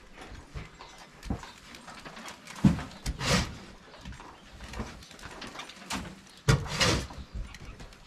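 Shovel scooping feed off the ground and tipping it into a wheelbarrow: two loud scoops, each a knock and a short scraping rustle, about three and a half seconds apart, with lighter knocks between.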